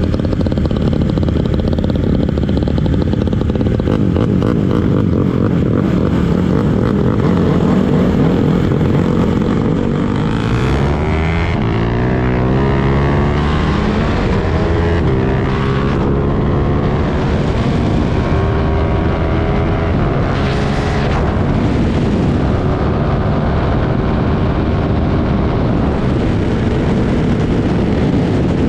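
Sport motorcycle engine heard from the rider's seat as the bike accelerates, its pitch climbing and dropping back several times as it shifts up through the gears, over steady wind rush on the microphone.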